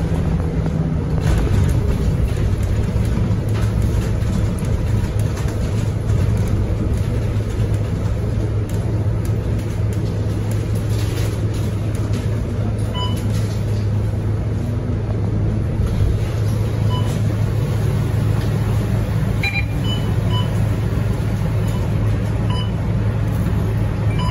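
Cabin sound of a Scania K230UB single-deck bus on the move: the diesel engine running with a steady low hum under road noise. A few short beeps come in the second half.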